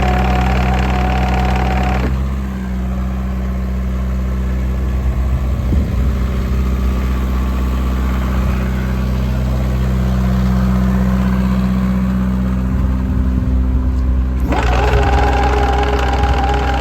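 Diesel engine of a JCB 55Z-1 midi excavator running steadily. A steady high whine rides over it for the first two seconds and comes back about two seconds before the end.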